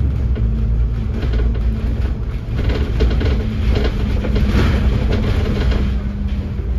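Cabin sound of a Dennis Enviro500 MMC double-decker bus under way: a steady low engine and road drone with rattling and clatter from the body.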